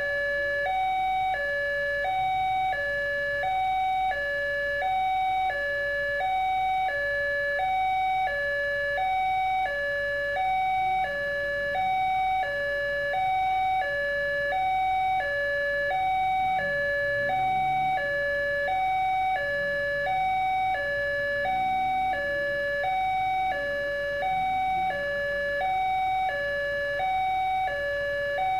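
Electronic two-tone warning alarm from a railway level crossing's loudspeaker, alternating steadily between a higher and a lower tone about every three-quarters of a second. It is the signal that the crossing is active and a train is approaching.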